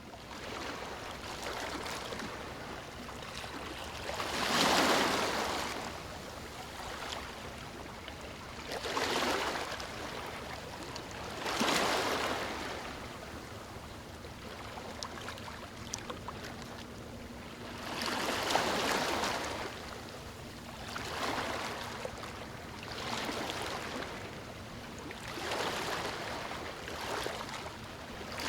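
Ocean waves washing onto a shore: a steady wash of surf with a louder swell breaking every few seconds.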